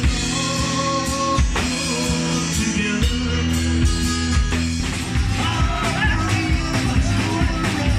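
Rock music: a man singing over guitar and a drum kit, with a steady beat.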